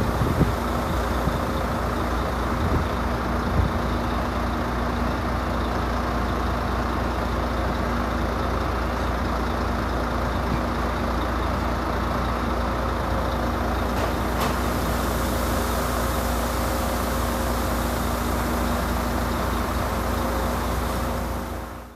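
Mercedes-Benz Actros truck's diesel engine running steadily at idle, an even low drone with a constant hum.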